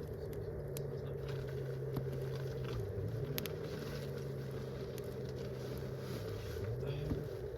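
A low engine drone that rises in pitch at the start, dips about three seconds in and falls away near the end, heard over the scattered crackle of a wood campfire.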